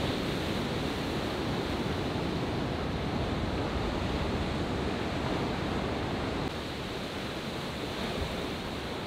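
Ocean surf: waves breaking and white water rushing in a steady wash, a little quieter from about six and a half seconds in.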